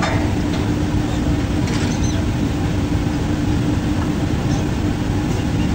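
Drilling rig machinery running steadily: a loud low drone with a constant hum, and a few faint metal clinks from the pipe tongs and drill pipe on the rig floor.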